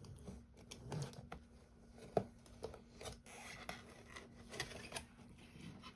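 Faint handling of a cardboard mail package being opened: light rustling of card and tape with scattered small clicks and taps, one sharper tap about two seconds in.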